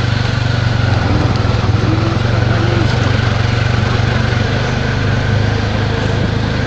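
Small engine of a three-wheeled auto-rickshaw running steadily under way, heard from on board as a constant low drone.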